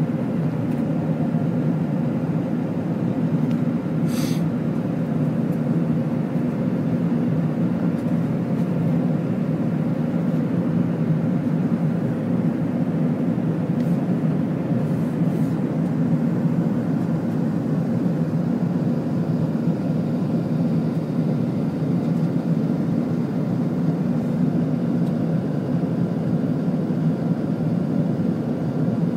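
Steady drone inside an airliner cabin in flight: jet engine and airflow noise, even and low-pitched.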